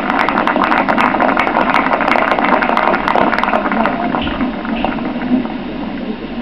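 Audience applauding, a dense patter of many hands clapping that thins out over the last couple of seconds.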